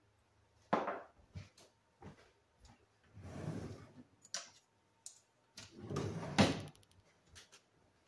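A kitchen drawer being opened and shut, with metal utensils clattering as they are rummaged through, and several separate knocks; the sharpest knock comes a little past six seconds in.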